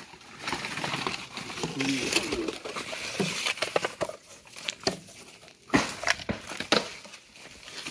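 Rustling and crackling, then several sharp knocks and clicks over the next few seconds, as bamboo poles and slats are handled. Faint voices can be heard in the background.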